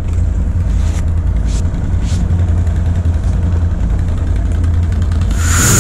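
Can-Am Outlander ATV's V-twin engine idling steadily with a low rumble. About five seconds in, a rising hiss swells up over it.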